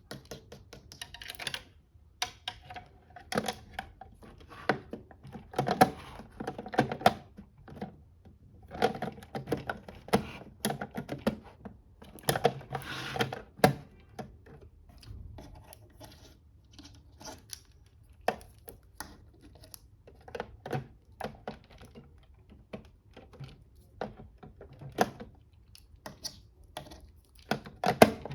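Plastic toys being handled: irregular clusters of light clicks, taps and knocks, like buttons, lids and small parts of a toy washing machine and toy iron being pressed and moved.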